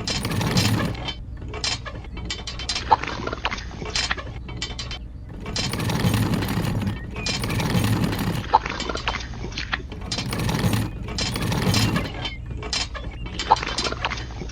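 Small electric gear motors of miniature model construction machines running in short spells, with gear clatter and scattered clicks and knocks.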